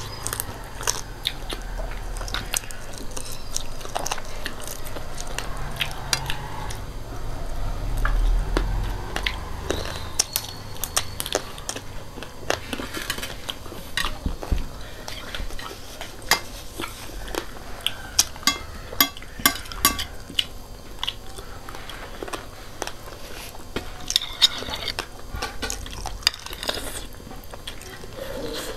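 Close-miked eating: biting and chewing fried chicken feet and instant noodles, with many short, sharp crunches and clicks and the occasional tap of cutlery on plates.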